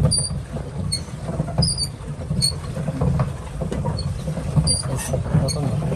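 Pedal boat being pedalled, with a short high squeak about every 0.8 s from its turning pedal mechanism, over a low, uneven rumble.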